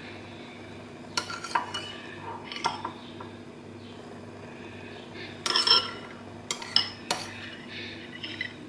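Cooked cauliflower florets set down one by one in a stoneware baking dish: scattered light clinks and taps on the ceramic, busiest around the middle, over a steady low hum.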